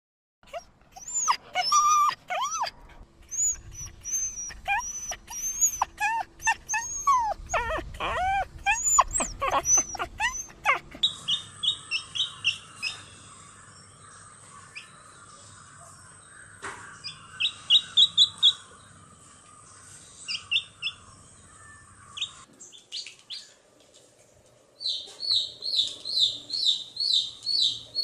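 For about the first ten seconds, high cries that rise and fall in pitch, from a young animal. After that, a downy chick peeps in short runs of high chirps, with a faster, steadier string of peeps near the end.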